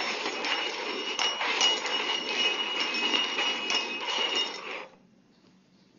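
Small upturned metal cups being shuffled and slid across a tabletop, scraping and clinking with a faint metallic ring. It stops suddenly about five seconds in.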